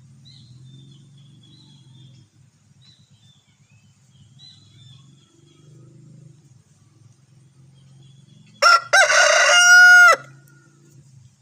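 Rooster crowing once, loud, near the end: a short first note then a long held final note of the cock-a-doodle-doo. Faint high chirping calls and a low steady hum lie underneath.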